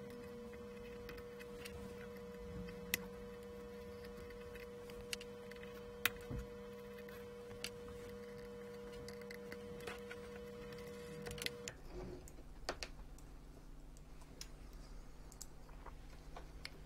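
Scattered small metallic clicks and taps as a laser module's mounting screws are undone and the module is lifted free. Under them a faint steady electrical hum with a mid-pitched whine cuts off suddenly about twelve seconds in.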